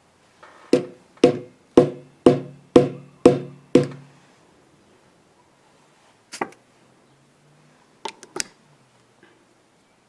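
Deer hair being evened in a metal hair stacker: seven taps of the stacker on the bench, about two a second, each ringing briefly. A few light clicks follow later.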